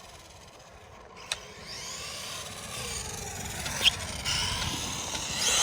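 Traxxas Mini E-Revo VXL RC truck's brushless electric motor whining up and down in pitch as the throttle is worked, with tire and drivetrain rasp. Two sharp knocks are heard, one about a second in and one near four seconds.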